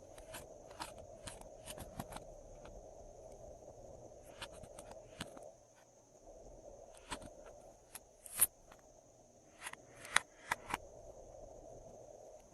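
Glossy slime being squished and pressed by hand, giving irregular sticky clicks and pops. The sharpest pops come about eight and ten seconds in.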